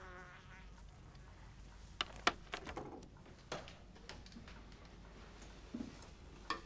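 A brief buzzing tone at the very start, then a scattered run of light, sharp clicks and taps, most of them between two and four seconds in and one more near the end, over faint room tone.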